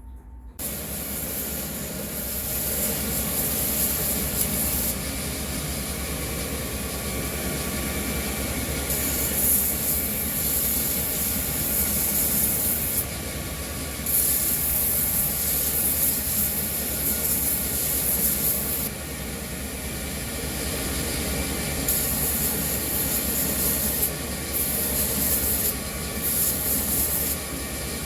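Belt grinder running steadily. A high hiss swells and drops back in passes of a few seconds, as the steel blade is pressed to the belt and lifted off.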